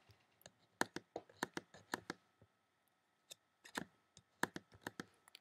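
About a dozen short, sharp clicks from a computer's mouse and keys being operated, coming in irregular clusters of two or three, faint, over a faint steady hum.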